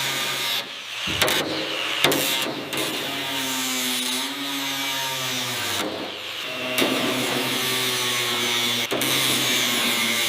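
Power tool motor whining at a steady pitch that shifts up and down, cut into several short shots with sudden breaks between them.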